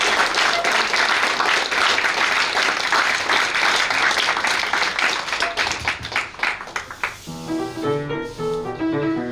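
Audience applauding, the clapping thinning out to scattered claps, then a piano begins playing about seven seconds in.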